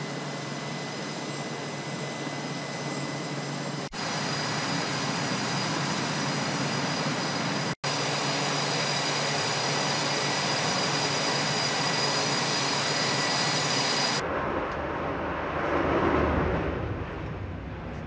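Jet aircraft engines running with a steady whine: a broad rush with several fixed high tones over it, broken off very briefly twice. About fourteen seconds in it gives way to a lower, rumbling sound.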